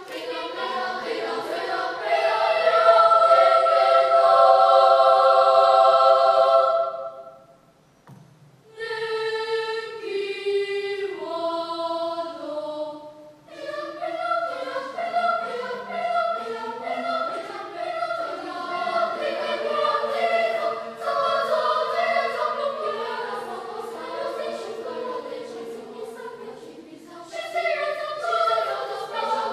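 Children's choir singing in several parts: a loud held chord that breaks off about seven seconds in, a brief pause, then the voices come back in with a falling line and go on in moving harmony.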